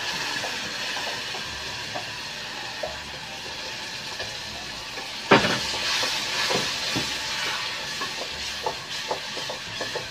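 Tomato sauce sizzling in a hot pan of butter-fried chopped onion as it is stirred with a wooden spoon. A sharp knock about five seconds in and lighter taps after it as the spoon meets the pan.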